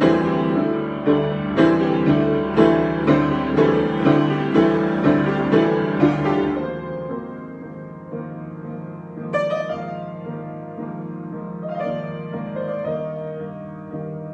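Solo piano improvisation: chords struck about twice a second, then easing about six and a half seconds in into softer held chords, with a new chord struck twice later on.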